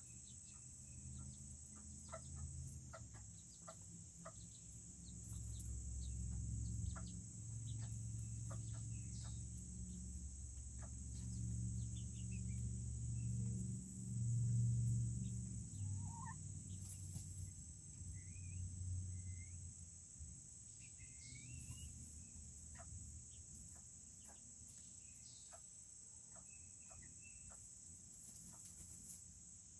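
Serama bantam chickens clucking softly, a low continuous chatter that swells in the middle and is loudest about halfway through, with occasional higher short cheeps.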